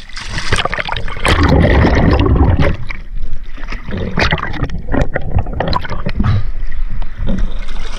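Water sloshing and splashing with irregular knocks and bumps, loudest between about one and three seconds in.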